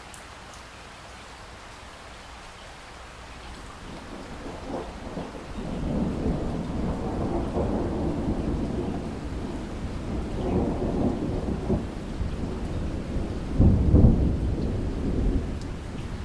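Thunderstorm: steady rain with a long roll of thunder that builds from a few seconds in, rumbles on, peaks in a loudest clap near the end and then starts to die away.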